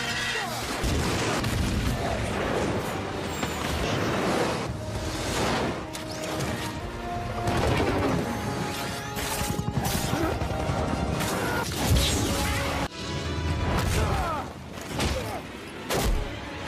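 Action-film soundtrack: a dramatic orchestral score mixed with repeated booms, crashes and impact hits of a fight, with one especially loud hit about twelve seconds in.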